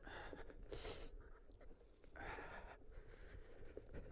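A person breathing out hard twice close to the microphone, short hissy breaths about a second in and again just past two seconds, over a low steady rumble.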